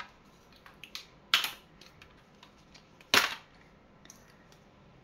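Two loud, sharp knocks about two seconds apart, with a few faint ticks between, as hard toys are handled and set down.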